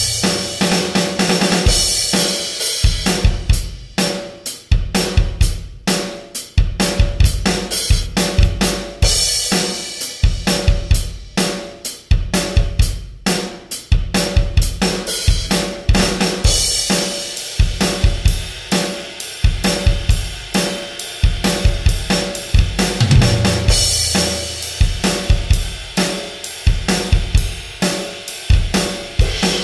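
Background music led by a drum kit: a fast, steady beat of kick drum, snare and cymbals.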